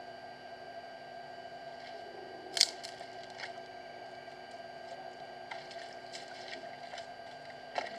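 Water splashing and squelching: a sharp splash about two and a half seconds in, several softer ones later, and another near the end, over a steady electrical hum.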